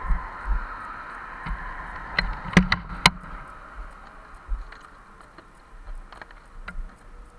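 Motorcycle engine idling with a low, uneven pulse, heard from a camera on the bike. A quick cluster of sharp clicks comes about two and a half to three seconds in, then the bike moves off and the sound drops quieter.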